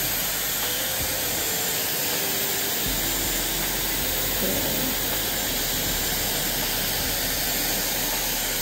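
Dyson hot-air styling wand running: a steady, even rush of blown air with a strong high hiss, as a section of hair is wrapped around its barrel to style it.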